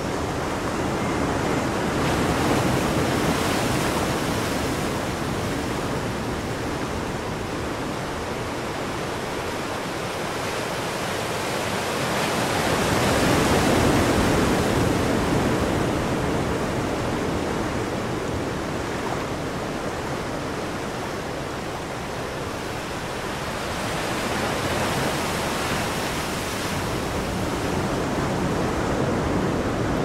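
CWS automatic seat-cleaning toilet running its cleaning cycle: a steady rushing, water-like noise that swells and eases a few times.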